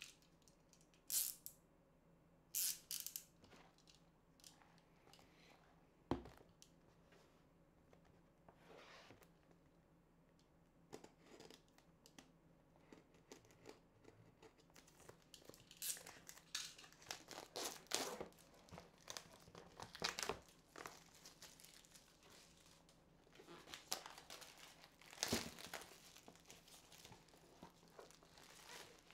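Clear plastic wrap being slit and torn off a cardboard product box, crinkling in scattered bursts, with a single knock about six seconds in.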